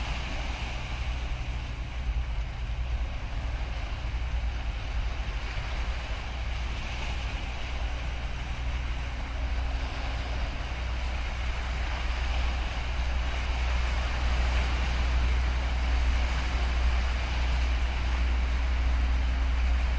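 Low, steady engine drone from the LPG tanker ORKIM GAS SUCCESS passing close inshore, growing slowly louder as the ship draws nearer, over a hiss of small waves washing on shore rocks.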